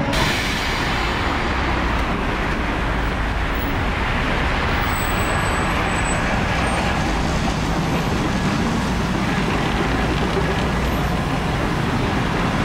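Steady road traffic noise from passing cars, with a vintage DL3000 tram running past close by near the end.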